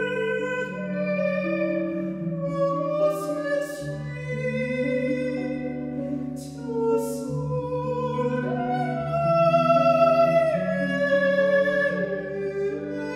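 Countertenor singing a slow classical art song in Norwegian, holding long notes over sustained electric-guitar accompaniment, swelling louder about two thirds of the way through.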